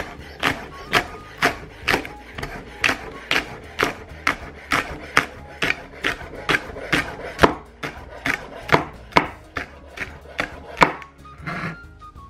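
Chef's knife chopping green onions on a wooden cutting board, the blade knocking the board in an even rhythm of about two strokes a second, stopping near the end.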